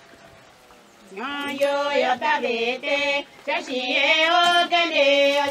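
A woman's voice singing, coming in about a second in with long held notes.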